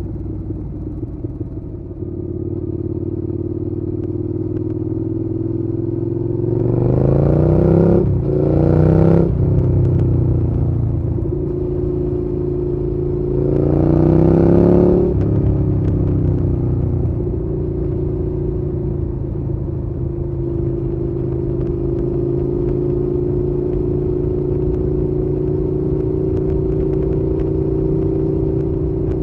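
Suzuki Gladius 650's V-twin engine idling, revved up twice in quick succession about seven to nine seconds in and once more around fourteen seconds, dropping back to a steady idle after each.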